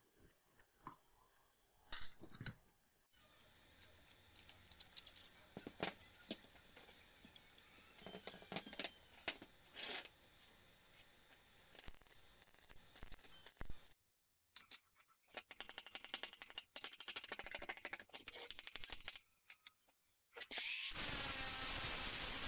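A few metal clicks as the steel grinder guide is handled, then several stretches of crackling from stick arc welding on steel. About a second and a half before the end, an angle grinder starts cutting steel, a loud steady grinding that is the loudest sound.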